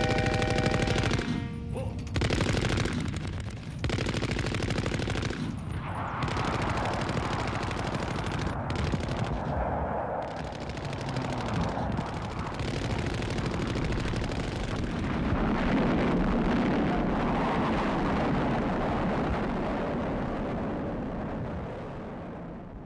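Rapid machine-gun fire in sustained bursts, a recorded battle sound, fading out near the end.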